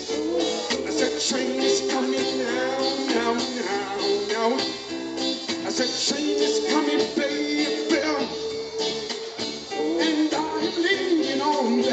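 Live band music with a man singing lead into a microphone over drum kit, electric guitar and bass guitar, in a reggae/rocksteady style.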